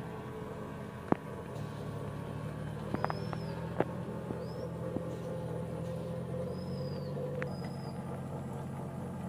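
Steady low mechanical hum from the home-made drum boat's electric motor driving it across the water, with a few sharp clicks and several short high chirps.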